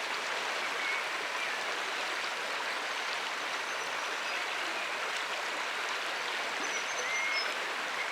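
River water flowing steadily, with a few faint short high chirps over it.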